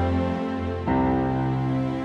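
Slow, sad background music of sustained chords, moving to a new chord a little under a second in.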